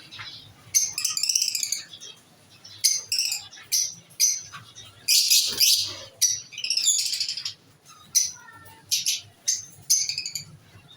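Small aviary cage birds calling: a string of loud, shrill chirps and chattering calls, one after another, the loudest about halfway through.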